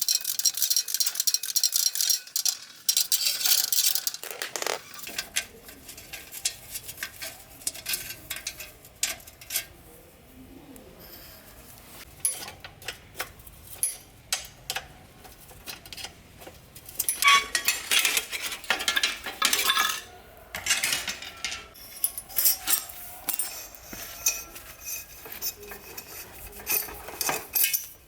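Metal tools and bicycle parts clinking and knocking irregularly as they are handled, with stretches of scraping or rubbing.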